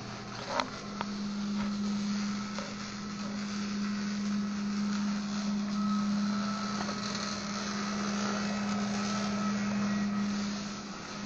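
A steady machine hum with a constant hiss over it, and a couple of sharp clicks just after the start.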